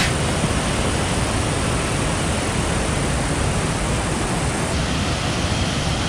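Steady rush of a small river waterfall, whitewater pouring over and between boulders, with the hiss turning a little duller about three-quarters of the way through.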